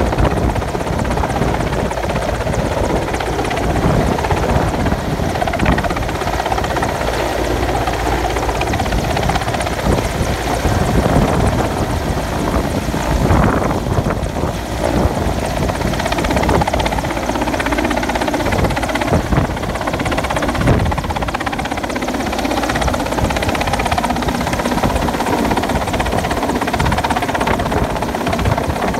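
Mi-8 helicopter hovering low overhead with a load on a long sling line, its main rotor and twin turboshaft engines running loud and steady.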